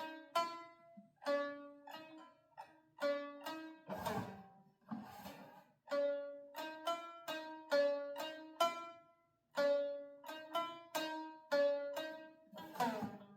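Homemade plucked-string instrument being played: a run of separately picked notes, several to a second, going back and forth among a few pitches. There is a rougher, scraping sound about four seconds in and again near the end. The instrument is a thrown-together build whose notes are not yet precisely tuned.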